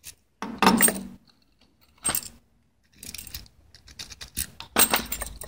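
Keys on a ring jingling as a brass euro-profile cylinder lock is handled and a key is pushed into its keyway: light metallic clinks and rattles in separate bursts, the loudest near the end.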